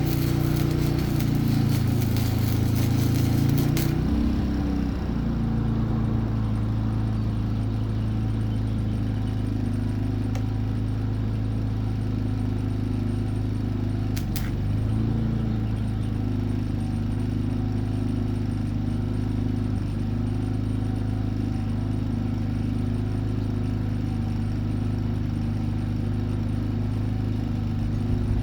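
A steady low machine hum. A loud hissing crackle over it stops about four seconds in, and there is a brief click about halfway through.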